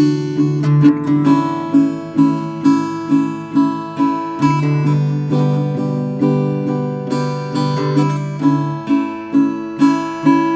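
Acoustic guitar strummed in a steady rhythm, a little over two strokes a second, changing chord a couple of times.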